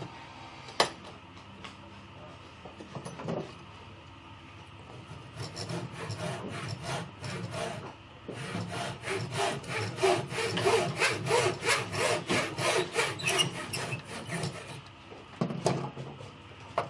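Hand saw cutting wood with quick, even back-and-forth strokes, about four a second: a short run, then a longer and louder one through the middle. There is a sharp knock just under a second in and another near the end.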